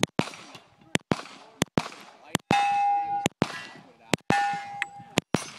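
Handgun firing a fast string of about ten shots at steel targets, the hits clanging on the steel. Twice a struck plate rings on with a clear tone for most of a second.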